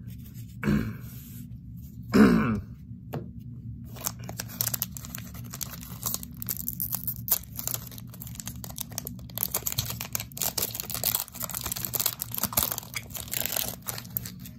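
A foil Magic: The Gathering booster pack wrapper being crinkled and torn open by hand, a dense run of sharp crackling from about four seconds in. Near the start, two short coughs.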